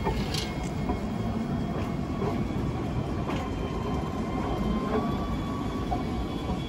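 Alstom Citadis 305 tram running on its rails: a steady low rumble with a few scattered clicks and a faint steady whine.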